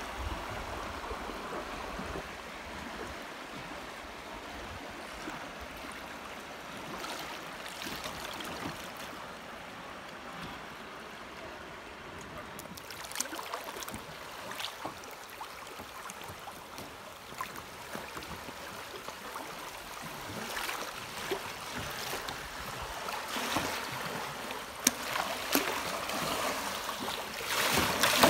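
Swift, high-running creek water rushing past a kayak, with scattered splashes from about halfway through. It grows louder near the end as the kayak runs into choppy water.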